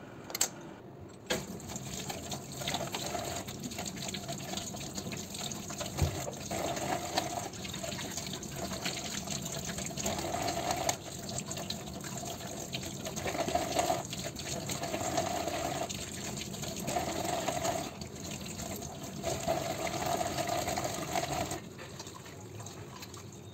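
Kitchen tap running into a steel sink while hands rinse under the stream, the splashing swelling and fading as they move, and going quieter near the end. A couple of sharp knocks come in the first second or so.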